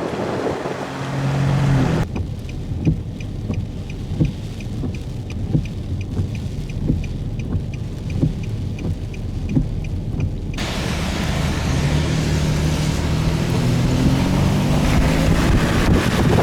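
Hurricane wind and rain beating around a vehicle, with the vehicle's engine rising in pitch over the last few seconds. For a stretch in the middle the wind's hiss drops away, leaving regular dull thumps about every second and a half.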